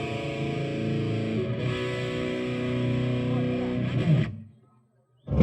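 Distorted electric guitar played through a stage amplifier, holding sustained notes and chords, then cut off sharply about four seconds in. A single loud low thump near the end.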